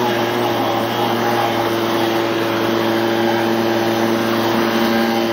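Gas-engine leaf blower running at a steady speed, its engine whine over the rush of air, blowing snow off a railroad rail.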